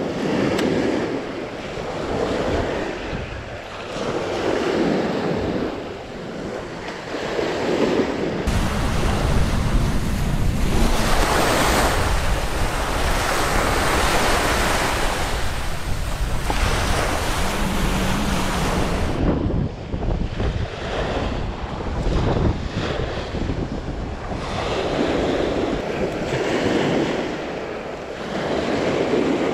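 Small waves breaking and washing up a sandy beach, surging and fading every couple of seconds. From about 8 seconds in until about 19 seconds, wind buffeting the microphone covers them.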